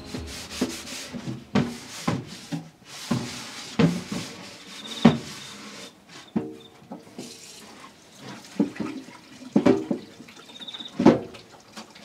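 Hands scrubbing a dried hard-shelled gourd under a running tap in a sink: irregular rubbing and scraping strokes on the shell, with water running.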